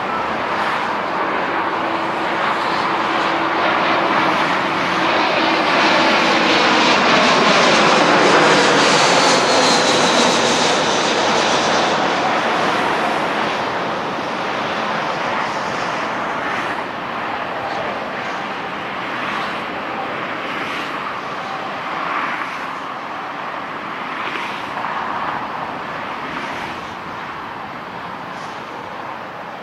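Twin-engine Airbus A320-family jet airliner on final approach passing low overhead. The jet noise swells to its loudest about eight seconds in, with a whine falling in pitch as it goes by, then slowly fades as it descends away toward the runway.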